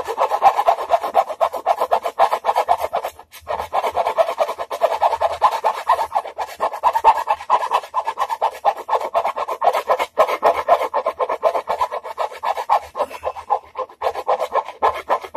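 Rapid rasping strokes of a hand tool working the painted wooden edge of a guitar body, scraping off paint and flattening the edge at an angle, with brief pauses about three seconds and ten seconds in.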